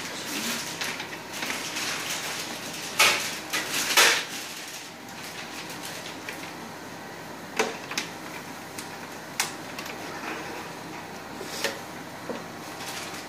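Plastic hemodialysis bloodline tubing being handled and fitted into the front of a dialysis machine: rustling with a string of sharp clicks as parts are pressed into place, the loudest two about three and four seconds in.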